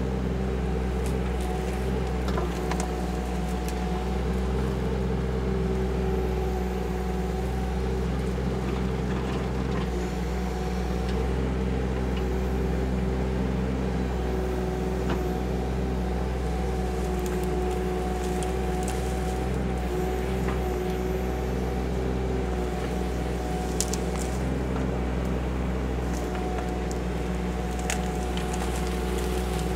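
KYMRON ZX22D mini excavator's diesel engine running steadily under load while it digs. A higher whine from the hydraulics strengthens and fades several times as the arm is worked, with a few light knocks near the end.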